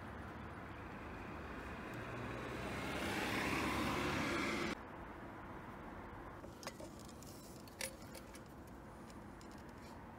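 Road vehicle noise, a car going by, swells for a few seconds and then cuts off abruptly about halfway through. Two short sharp clicks follow, from handling the plastic trim and silicone tube.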